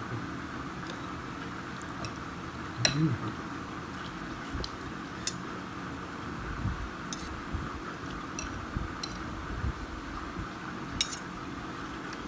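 A spoon clinking against a bowl of rice porridge while it is being eaten: a few sharp, scattered clinks, the loudest about five seconds in and again near the end, over a steady faint hum.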